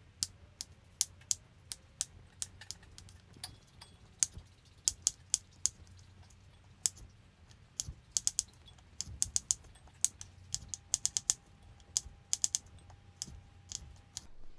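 Chef's knife chopping red potatoes into cubes on a wooden cutting board: quick, irregular sharp knocks of the blade on the board, several a second and often in clusters.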